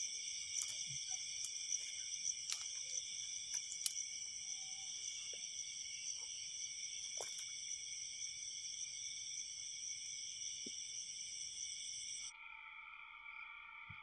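Steady, unbroken chorus of night insects, several high-pitched trills layered together, with a few sharp clicks in the first few seconds. About twelve seconds in, the highest trills cut off suddenly and a lower set of steady tones takes over.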